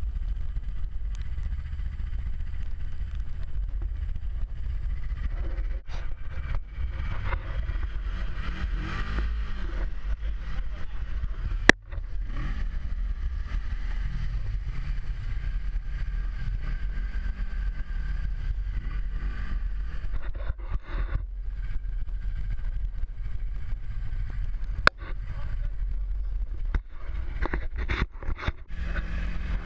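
Snowmobile engine running as the machine is ridden across snow, its pitch rising and falling with the throttle. Two sharp clicks stand out, one near the middle and one later on.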